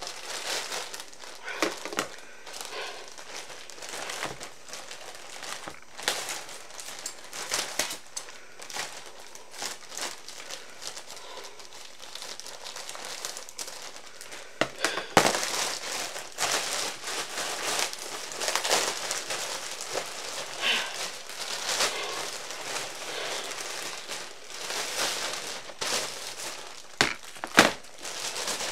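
Plastic packaging bag crinkling and rustling as it is handled, with a couple of louder knocks about halfway through and near the end.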